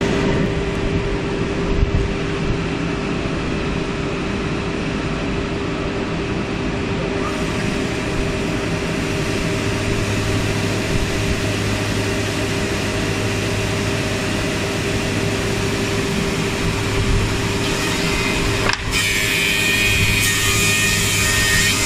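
Four-side moulder woodworking machine running with a steady hum. Near the end the sound turns brighter and harsher, as the cutters start working the wood.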